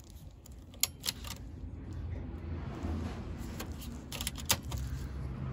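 Optical drive tray of a Dell OptiPlex 780 SFF being ejected: a few plastic clicks from the eject button about a second in, a low hum from the drive mechanism rising from about two seconds in, and more clicks about four seconds in as the tray comes out.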